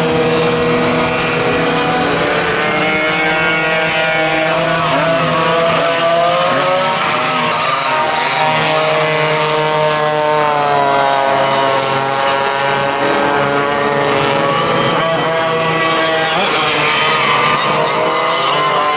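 Several vintage racing kart engines running at high revs on track, loud and continuous, their pitches rising and falling as the karts accelerate, brake and pass one another.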